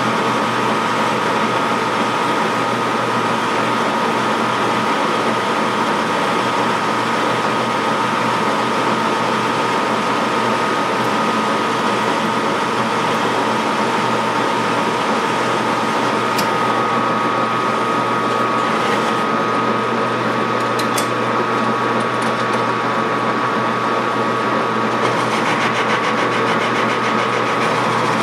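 Metal lathe running steadily with a high whine, turning down a bar of 1018 steel to size. A few faint ticks come through about two-thirds of the way in.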